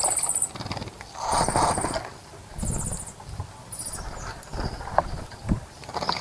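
Small birds splashing and fluttering their wings in a bird bath, in repeated bursts of about a second. Short, very high, buzzy trills from a small bird come between the splashes.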